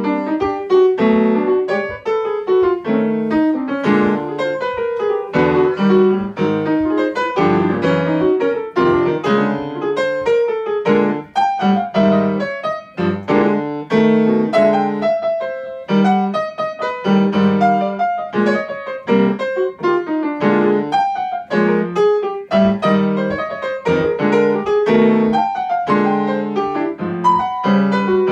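Grand piano played solo: jazz, a continuous stream of quick right-hand notes over recurring low chords.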